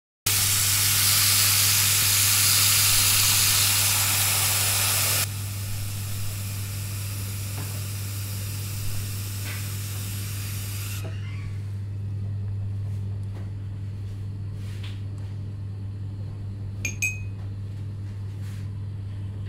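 Running water hissing loudly, dropping to a softer hiss about five seconds in and dying away around eleven seconds. After that come a few faint drips and a small clink over a steady low hum.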